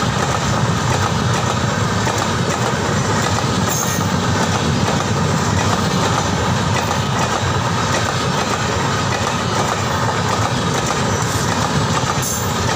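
Express train coaches passing close by at speed: a loud, steady rumble and rush of steel wheels on the rails that keeps up without a break.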